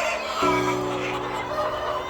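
Chickens calling and clucking over background music of held chords; the chord changes about half a second in.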